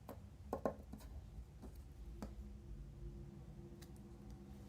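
Faint, scattered small clicks and taps of tweezers and tiny metal lock parts being handled on a bench, a few sharp ones in the first couple of seconds, over a low steady hum.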